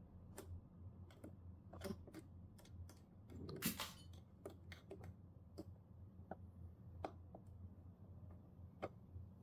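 Faint, irregular clicks and ticks of a screwdriver working the screws in a TV's plastic back casing, with a brief scrape about three and a half seconds in.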